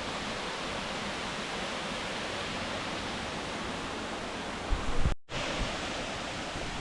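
Steady rushing of a waterfall. About five seconds in there is a short low bump on the microphone, and the sound drops out completely for a moment before the rushing resumes.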